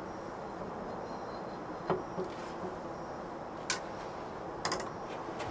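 Flames burning off the pour hole of a sand-casting mould just filled with molten silver: a steady rushing hiss with a few sharp crackles about two, four and five seconds in.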